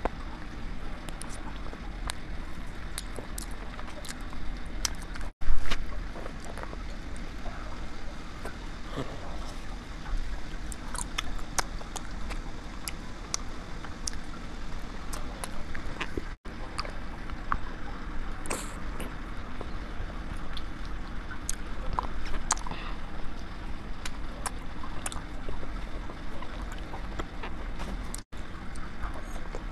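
Close-miked biting and chewing of wax bottle candy: scattered small clicks and crackles as the soft wax is bitten and worked, over a steady low hum, with a louder bump about five seconds in.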